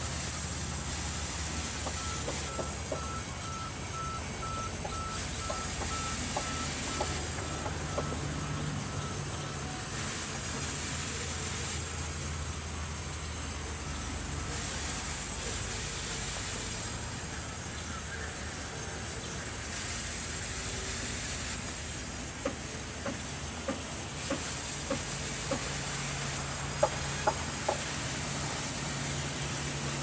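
Large vertical band saws running in a sawmill: a steady low hum under a high, constant whine from the blades. Short knocks of timber being handled come now and then, with a cluster of louder knocks near the end.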